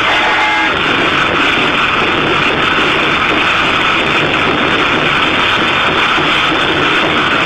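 Several large Chinese barrel drums of a plum-blossom (meihua) drum troupe beaten together in a fast, dense roll, loud and steady throughout.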